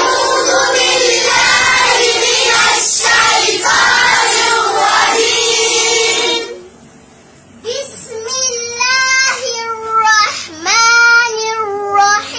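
Children chanting Quran recitation together as a group for about six seconds, many young voices overlapping. After a brief lull, one little girl carries on alone in a high, held, melodic recitation that slides between notes.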